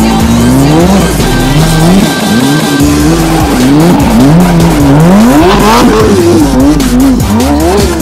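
Mitsubishi Lancer Evolution X's turbocharged four-cylinder engine revving up and down over and over, about twice a second, as the car slides and spins its wheels on snow.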